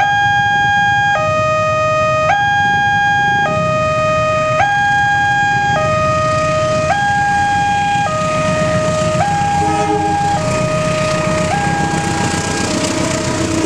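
Railway level-crossing warning siren alternating between a higher and a lower tone, switching about once a second. In the second half a rushing noise from the approaching train grows beneath it.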